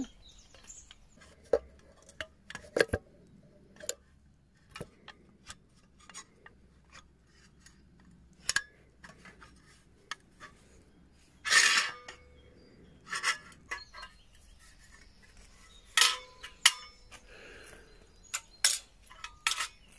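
Sheet-metal clicks, clinks and knocks of a Firedragon folding stove being handled, opened out and set down on a tiled tabletop. Irregular sharp knocks, louder ones from about the middle on, some ringing briefly.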